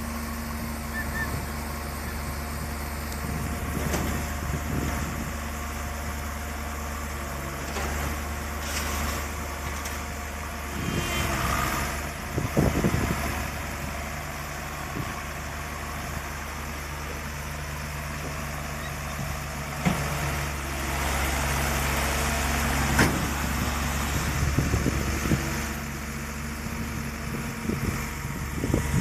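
Diesel engines of a tilt-bed tow truck and a Bobcat S175 skid-steer loader running steadily near idle while the loader is moved on the truck's tilting steel bed. The engine sound gets louder about twelve seconds in and again from about twenty seconds in, with sharp metallic knocks among it.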